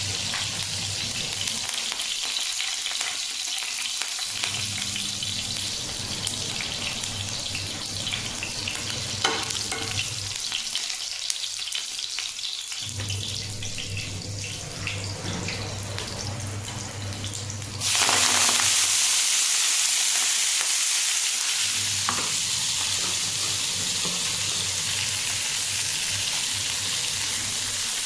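Food sizzling as it fries in hot oil in a pan and is stirred, with a few sharp clicks. About two-thirds of the way through, the sizzle suddenly gets louder, as when something new goes into the hot pan.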